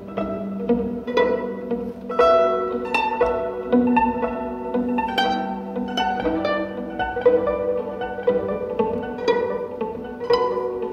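Solo violin improvising, a busy run of plucked notes mixed with bowed notes over a steady held low note that drops out near the end.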